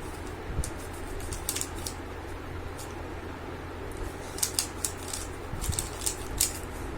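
3×3 Rubik's cube being turned quickly in the hands during a speedsolve: irregular clicking and clacking of the plastic layers, in quick clusters.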